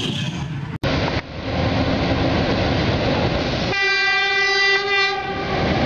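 CC 201 diesel-electric locomotive rumbling as it moves along, then sounding its horn in one steady blast of about a second and a half.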